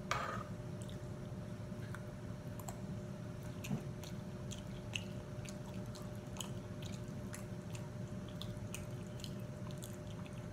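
A person chewing a mouthful of corn-masa tamale, with soft, wet mouth clicks scattered through. A faint steady hum runs underneath.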